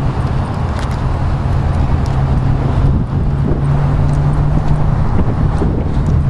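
Ford F-150 Limited's 5.4-litre V8 idling steadily, with a constant low hum.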